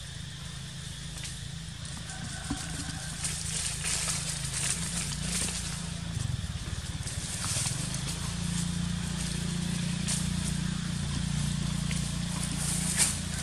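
A steady low engine hum from a vehicle that gets a little louder from about the middle on, with scattered crackles and ticks over it and one sharp crackle near the end.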